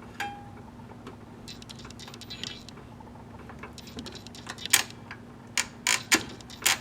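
Sharp mechanical clicks and knocks from a Singer Touch & Sew 750 sewing machine's controls and parts being worked by hand, with a few loud clicks close together in the second half, over a faint steady hum.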